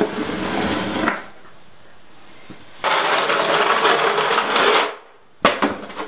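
Snow shovel scraping along a wooden dust-collection rail, pushing sawdust: one scrape fading out about a second in, a second longer scrape starting near the three-second mark, then a sharp knock near the end.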